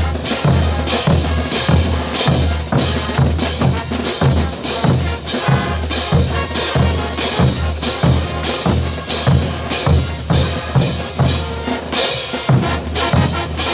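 Bolivian brass band playing a morenada, with the drums to the fore: a steady, even beat of bass drum and crashing strikes carrying under fainter held brass tones.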